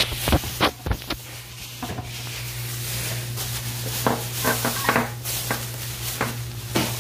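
Phone camera bumped and handled close to the microphone with a few sharp knocks in the first second, then plastic bags and packages rustling and clattering as shopping is unpacked, over a steady low hum.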